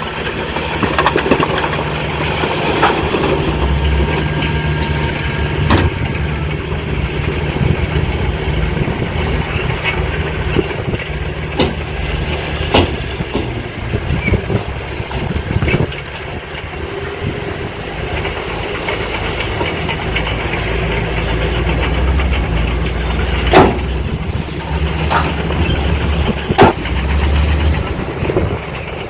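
Diesel engine of heavy earthmoving machinery running steadily, with several sharp knocks or clanks, the loudest two near the end.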